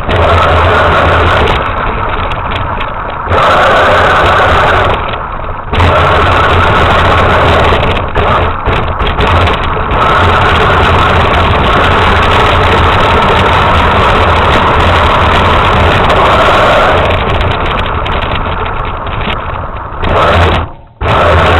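RC truck motor running hard in long stretches, easing off and picking up again several times, with a brief near cut-out near the end.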